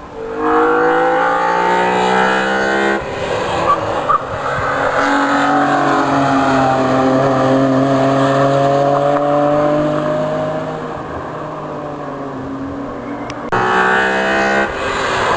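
BMW M3s accelerating past one after another, each engine's pitch rising as it pulls through the gears, with a loud intake howl. One pass starts and is cut off after about three seconds. A longer pass climbs and then fades, and another car comes in abruptly near the end.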